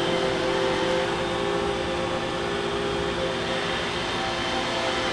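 iRobot Roomba robot vacuum running: a steady motor and brush hum with a couple of held tones, as it follows the edge of the room looking for its dock.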